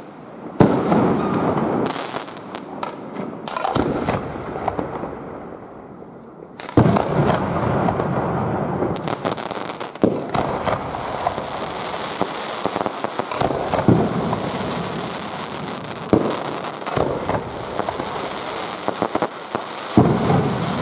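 Fireworks display: aerial shells bursting with a loud bang every few seconds, each followed by a rumbling echo, amid dense crackling from the bursts.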